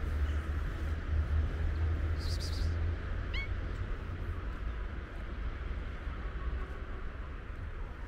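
A cat gives one brief, high, rising meow a little over three seconds in, over a steady low rumble.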